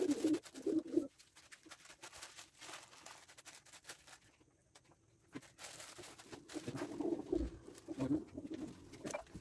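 Domestic tumbler pigeons cooing: low warbling coos in the first second, then again from about two-thirds of the way through, with scattered light clicks and rustles between.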